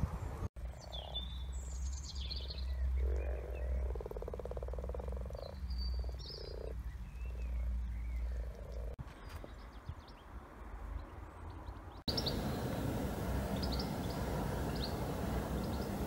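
Common frogs croaking in a breeding chorus, a series of low purring calls, with birds chirping over them. About twelve seconds in the sound cuts to a steady hiss of outdoor noise with a few faint chirps.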